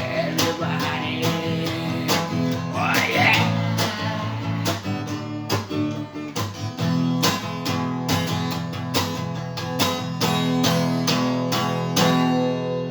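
Instrumental passage of a song: a guitar strummed in a steady rhythm.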